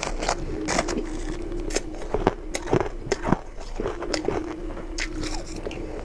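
Close-up chewing and crunching of frosty crushed ice, with irregular sharp crunches and clicks between quieter chewing, over a faint steady hum.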